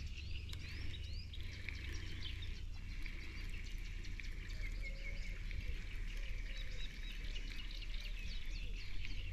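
Birds chirping and singing over a steady low rumble, with many short calls throughout.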